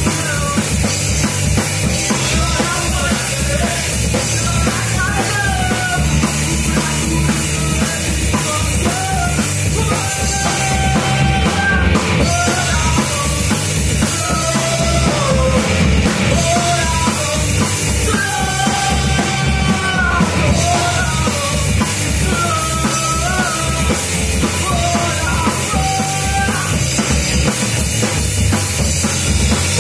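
A live rock band plays loudly: a vocalist sings into a microphone over electric guitar, electric bass and a pounding drum kit, in a punk-rock style.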